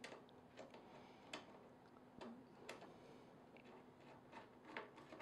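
Near silence with a few faint, irregular clicks from a hand screwdriver turning a screw into the plastic end bracket of a MountaRay light mount.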